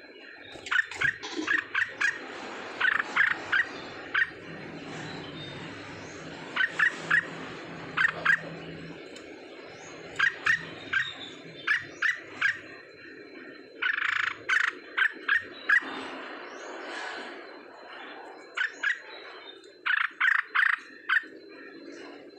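An animal's short, sharp calls, repeated in quick clusters of two to four every second or two.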